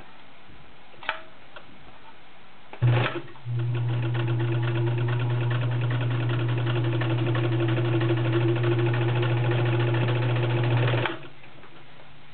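Vintage Riccar RZ-415B all-steel zigzag sewing machine sewing a zigzag stitch through fabric. Its motor starts about three seconds in with a short burst, then runs smoothly and steadily with rapid, even needle strokes for about seven seconds before stopping abruptly.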